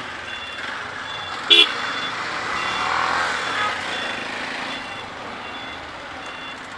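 City street traffic heard from a slowly moving motorcycle: a steady hum of engines and road noise, with a short, sharp horn toot about one and a half seconds in. A faint high beeping repeats about twice a second throughout.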